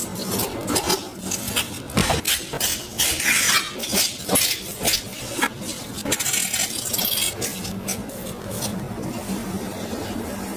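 Knife blade scraping scales off a salmon's skin in quick repeated strokes, thinning out after about six seconds, over a faint steady low hum.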